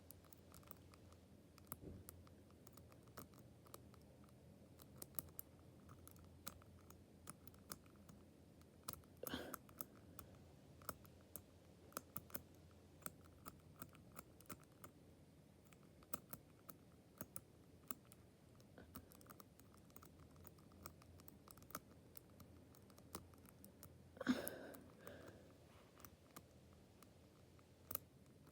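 Faint, irregular clicking of a Desired Tools combination lock's number wheels being turned a notch at a time during decoding, with louder bursts of clicks and handling twice.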